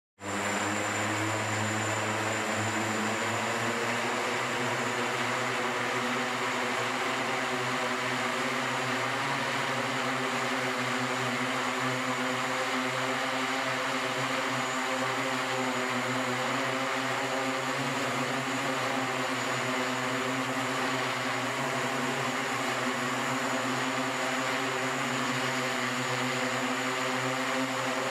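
SkyDrive SD-03 eVTOL hovering on its electric multirotor propellers: a steady, even drone-like hum of spinning rotor blades with a thin high whine above it.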